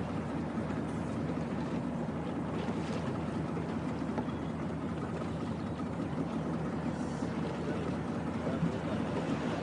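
Steady low hum of a small boat's engine running at cruising speed, with water and wind noise around it.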